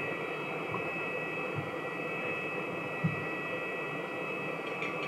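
Steady whine and hiss of aircraft machinery on an airport apron, with a soft low thump about three seconds in.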